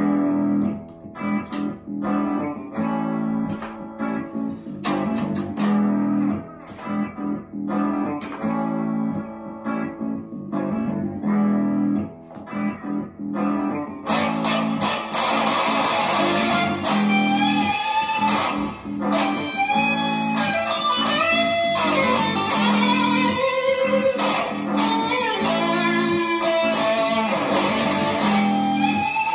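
Electric guitar, an Epiphone Les Paul Custom through a multi-effects unit, playing a looped rhythm part of repeating chords. About halfway through, a sustained lead line with bent notes comes in over the loop and carries on.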